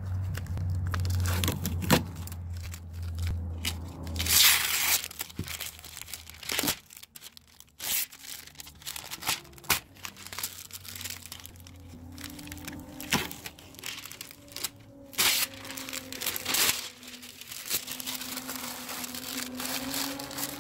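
Masking tape being peeled off freshly painted truck bodywork and the tape and masking paper crumpled: irregular tearing and crinkling with sharp clicks.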